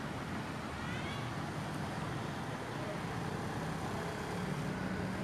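Steady road-traffic noise: motorcycle engines and tyres on a wet road, with a short high chirp about a second in.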